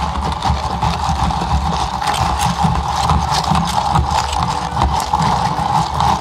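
Café blender's electric motor running loud and steady, with a constant low rumble and a steady whine.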